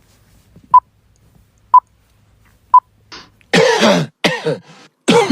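Three short electronic beeps a second apart, then a person coughing several times in quick succession, the loudest sound here.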